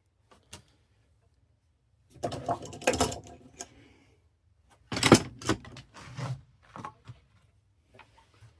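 Irregular clattering and knocks from handling tools or parts, with a burst of rattling about two seconds in and the loudest knock about five seconds in, then a few light ticks.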